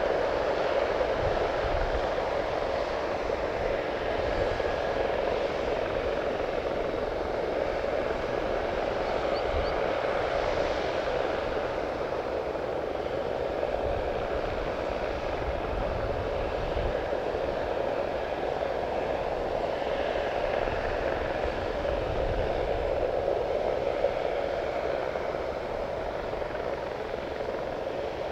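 Boeing 787's Rolls-Royce Trent 1000 turbofan engines at taxi power, a steady hum as the airliner taxis toward the runway.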